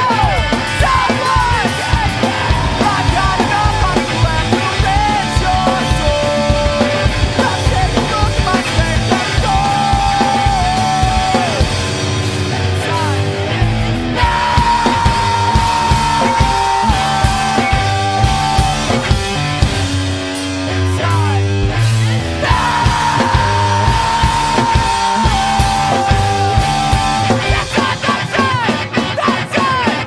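Punk rock song with electric guitar and drums, and a voice singing and shouting over them.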